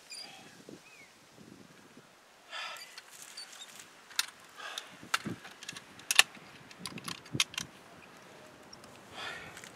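Sharp metallic clicks and knocks from a hunting rifle and shooting stick being handled and set down on grass, a cluster of them in the middle, one louder than the rest.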